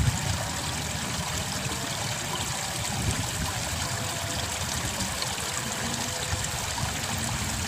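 Steady trickling and rushing of water flowing along a small irrigation ditch, with a low, uneven rumble underneath.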